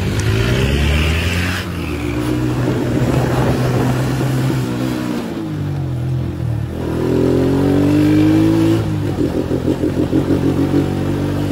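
Kuba CG single-cylinder four-stroke motorcycle engine running under way, its revs rising and falling as the bike speeds up and slows, settling into a slow, pulsing beat near the end.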